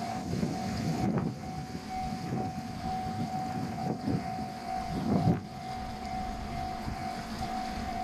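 Japanese level crossing's warning alarm ringing as one steady tone, over a low rumble that swells briefly about a second in and again, louder, about five seconds in.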